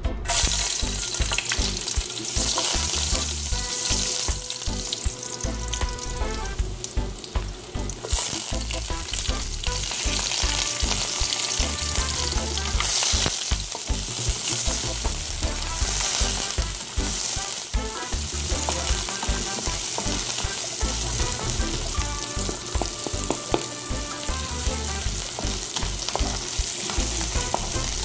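Chopped onion dropped into hot oil in a wok, starting a loud sizzle all at once, then frying while it is stirred and scraped around the pan with a wooden spatula.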